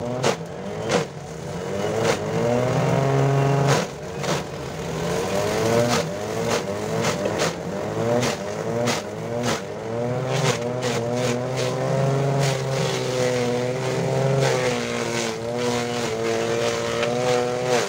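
Homemade grass chopper running while it chops grass: a motor hum whose pitch dips and recovers again and again as it takes the load, with many sharp cracks and knocks from the material being chopped.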